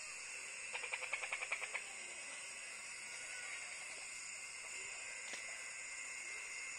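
Night insects chirring steadily in a high-pitched, even drone. About a second in comes a short fast run of about ten chirps a second that lasts about a second.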